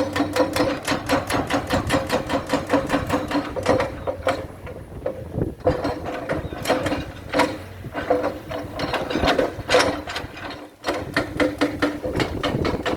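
Excavator working with a rapid, regular mechanical clatter of about five to six clicks a second over a steady hum; the clatter thins out briefly twice.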